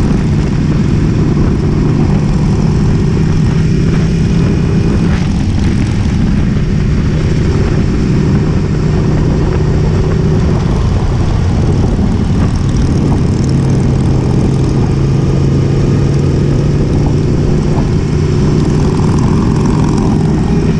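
Motorcycle engine running steadily while cruising on the road, its note dropping a little about halfway through.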